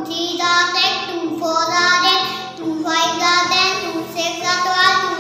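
A young boy reciting a multiplication table aloud in a chanting voice, one phrase after another with only a brief break partway through.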